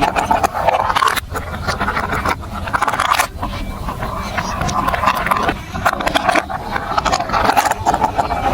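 Marbles rolling and clattering along plastic marble-run tracks, a continuous rolling rumble dotted with many quick clicks.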